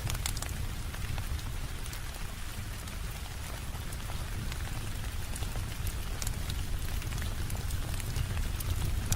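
Steady rain falling, with a constant low rumble underneath and scattered sharp ticks.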